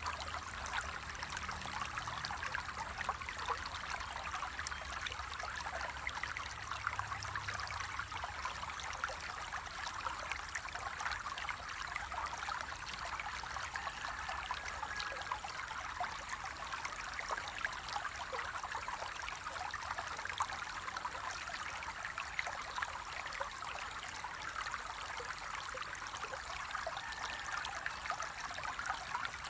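Flowing stream water running steadily, with fine splashing throughout. A faint low rumble underneath fades out during the first ten seconds or so.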